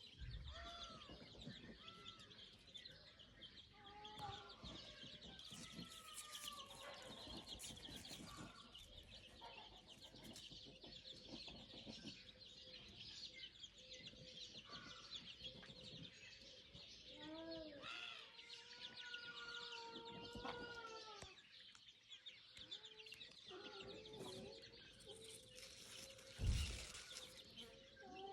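Chickens clucking on and off, with one longer drawn-out call about two-thirds of the way through, over a steady high chirping of insects or small birds. A single sharp thump comes near the end.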